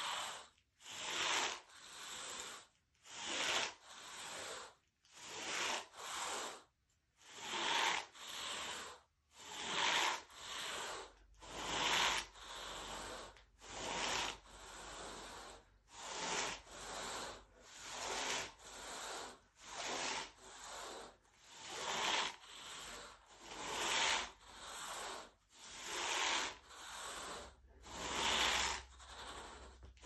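Rubber-bladed carpet rake dragged through carpet pile in short back-and-forth strokes, a rhythmic scraping about once a second.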